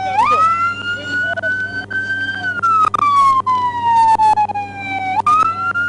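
Police car siren in a slow wail: the tone jumps up sharply, rises a little more, then falls slowly for about three seconds before jumping up again near the end. A few sharp clicks and a steady low hum sit underneath.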